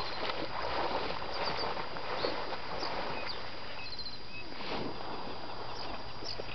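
Lakeside outdoor ambience: a steady rushing wash of noise, with short high bird chirps now and then, including a quick run of them about four seconds in.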